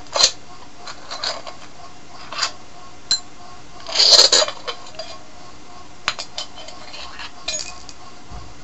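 Metal parts of a Honda Del Sol strut clinking and clicking as the washer and top mount pieces are worked off the piston rod: a run of short light clinks, loudest in a cluster about four seconds in.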